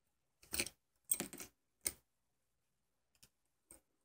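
Metal clinks and rattles from handling a metal spoon lure and a pair of forceps, in three or four quick bursts within the first two seconds, then two faint ticks near the end.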